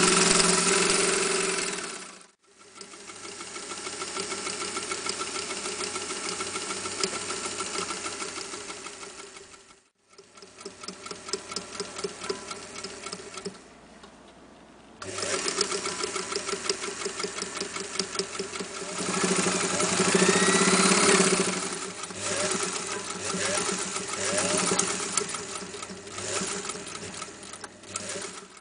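Singer 201K electric sewing machine running and stitching, with a fast even stitch rhythm. It stops and starts again twice, and its speed rises and falls as the machine is driven harder and eased off.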